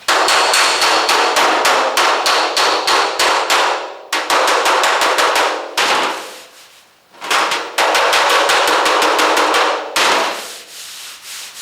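Body hammer rapidly tapping out a dent in a Volkswagen's sheet-metal hood or trunk lid against a dolly, about six ringing metal strikes a second. The strikes come in three runs: the first lasts about four seconds, a short second run follows, and a third starts near the middle and runs about two seconds.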